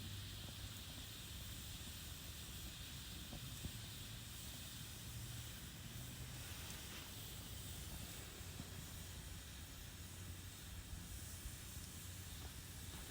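Campfire burning: a steady soft hiss with a few faint crackling pops.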